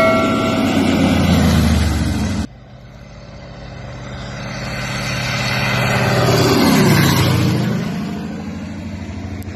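Crop-spraying airplane's engine and propeller on low passes. The sound of one pass cuts off abruptly about two and a half seconds in. The next pass then builds steadily, is loudest about seven seconds in with a drop in pitch as the plane goes overhead, and fades away.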